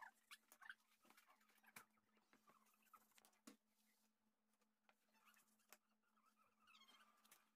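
Near silence: a low steady hum with faint, scattered clicks and taps.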